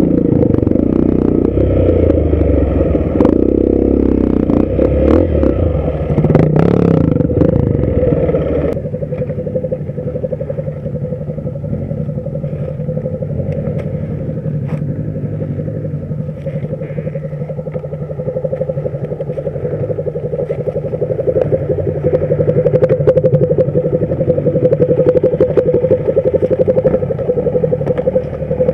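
Dirt bike engine revving under load for the first several seconds, then settling to a steady idle for the rest.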